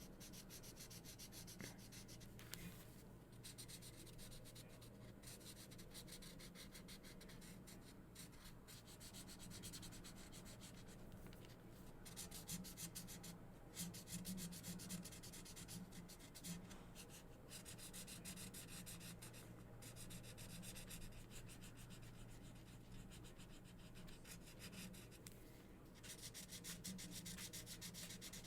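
Markers scratching across paper in rapid back-and-forth coloring strokes, in runs broken by short pauses, over a faint steady low hum.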